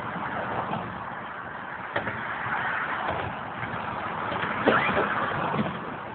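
Road traffic passing on a multi-lane road below, a steady wash of tyre and engine noise. A sharp click comes about two seconds in, and a louder cluster of knocks just before five seconds.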